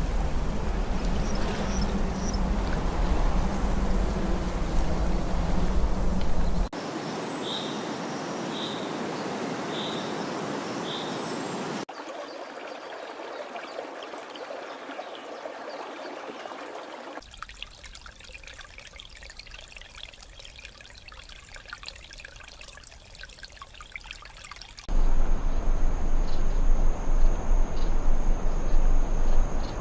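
Rainforest ambiences cut together. First comes a loud, steady rush of running water. It cuts to a quieter background with a short high chirp repeated about once a second, then to quieter stretches with faint ticking. About 25 s in, a loud ambience with a steady high-pitched insect drone takes over.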